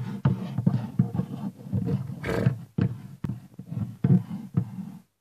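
A human voice making rough, growling animal noises for a plastic Schleich toy horse, with several sharp knocks of the figure against the play-set floor.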